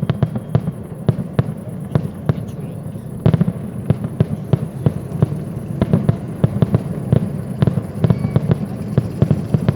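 Fireworks going off in a rapid, irregular string of bangs and cracks over a low continuous rumble, growing denser and louder about three seconds in.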